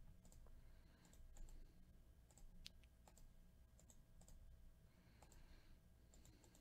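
Faint, scattered clicks of a computer mouse and keyboard keys, over a low room hum.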